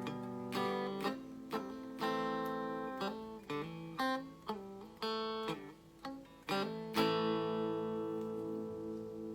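Donner DST1 electric guitar played on a clean tone: a run of plucked single notes and chords, then a chord left ringing for about the last two seconds.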